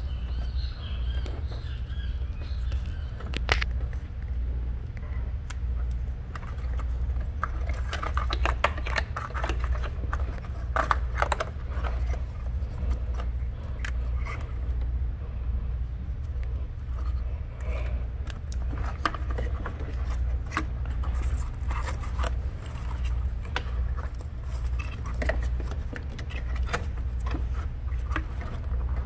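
Plastic electrical connectors clicking and the engine wiring harness rustling as connectors are handled and unplugged, with scattered short clicks, a cluster of them about a third of the way in. Underneath runs a steady low hum.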